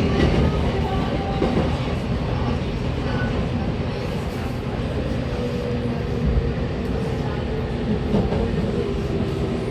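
Running sound inside a JR Kyushu 813-series electric train car, slowing into a station: a steady rumble of wheels on rail with occasional clicks over the joints and faint steady motor tones.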